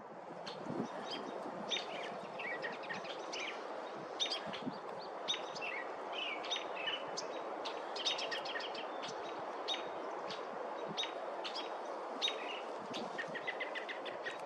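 Birds chirping and twittering: many short, high calls over a steady background hiss, with a quick run of repeated notes near the end.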